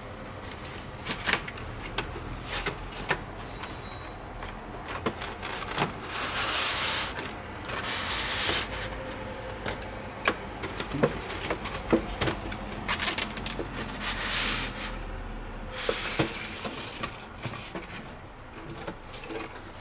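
Unboxing handling noise: a cardboard model box being opened and its polystyrene foam packing insert slid out, giving rubbing and scraping of foam against cardboard in several longer stretches, with scattered sharp taps and knocks throughout.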